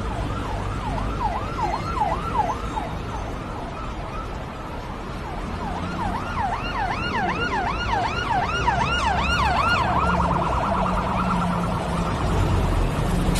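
An electronic siren yelping in quick rising-and-falling sweeps, about three a second; it pauses briefly, resumes, and switches to a much faster warble near the end, over a low steady traffic rumble.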